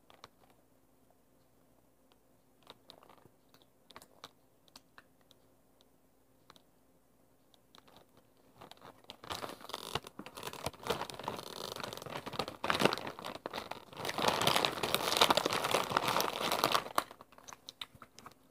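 Family-size Lay's Lightly Salted potato chip bag crinkling loudly as it is handled and folded shut, for about eight seconds starting about nine seconds in, after a few faint clicks.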